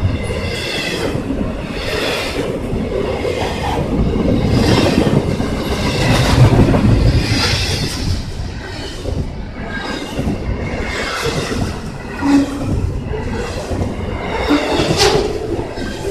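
Norfolk Southern container train's freight cars rolling past at speed, wheels clacking over rail joints in an even repeating rhythm, with one sharp clack near the end.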